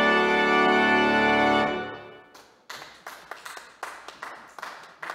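Church organ holding a full final chord that cuts off a little under two seconds in and dies away in the room's reverberation. Scattered hand clapping follows from about the middle, a few claps a second.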